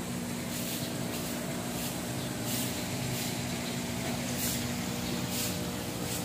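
Steady low mechanical hum with an even hiss over it, and faint soft ticks about once a second.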